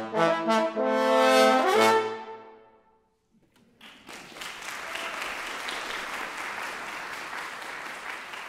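French horn and trombone duet playing the closing bars of a tarantella: the horn slides up to a loud accented final note together with the trombone, and the note dies away. After a second of silence an audience applauds.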